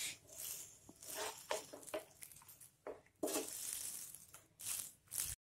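Spatula stirring and tossing noodles in a frying pan: irregular soft scrapes and rustles against the pan, with a longer stretch of scraping a little past the middle.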